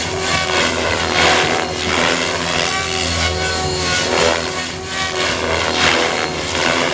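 XLpower Nimbus 550 electric RC helicopter flying 3D aerobatics: a steady motor and rotor whine, with a rushing swoosh from the main rotor blades about once a second as it flips and changes pitch.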